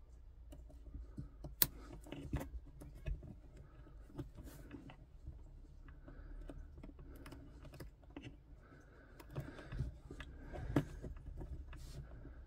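Faint clicking and handling noise of pump wires being fitted into Wago lever connectors, with a few sharper snaps, the sharpest about one and a half seconds in and again near the end.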